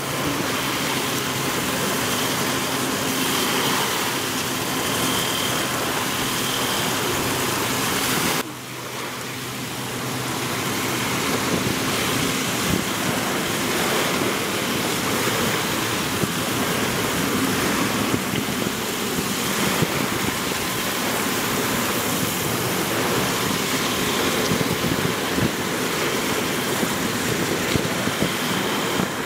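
Small waves washing onto a pebble shore, with steady wind noise on the microphone. The sound drops briefly about eight seconds in, then comes back.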